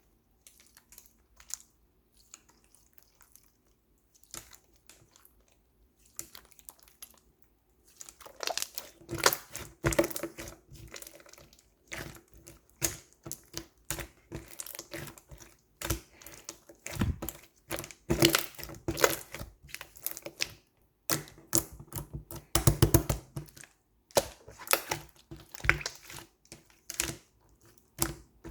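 Slime being squeezed and poked by hand, giving rapid sticky clicks, pops and crackles. The clicks are sparse and faint at first and turn dense and louder from about eight seconds in.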